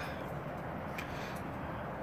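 Quiet, steady background hum with one faint click about a second in.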